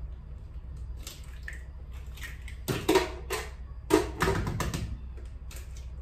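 Two eggs cracked against a mixing bowl: two sharp knocks about a second apart, each followed by a short wet tail as the egg drops in, with a few lighter kitchen clicks around them.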